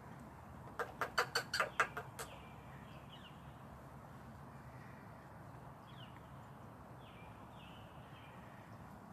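Cockatiel giving a rapid run of about nine short, harsh calls in a second and a half, followed by a few faint, soft chirps.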